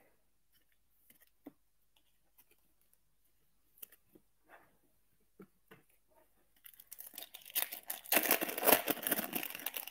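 A foil trading-card pack being torn open and crinkled, loud for about three seconds near the end, after faint taps and clicks.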